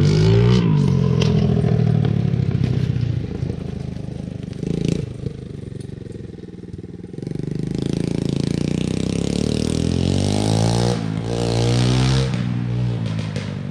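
Small single-cylinder 212 engine, newly swapped into an ATV, running and being revved up and down, its pitch rising and falling several times in the second half.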